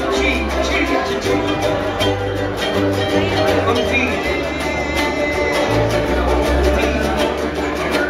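A group of ukuleles strumming chords together, with low bass notes moving underneath.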